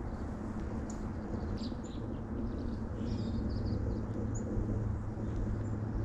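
Scattered short, high chirps and calls of small woodland songbirds, faint over a steady low rumble.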